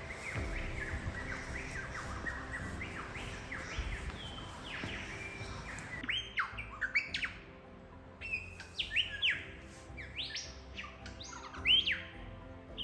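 Several birds calling in bushland: quick chirps and sharp whistled notes that sweep up and down, coming thicker and louder in the second half.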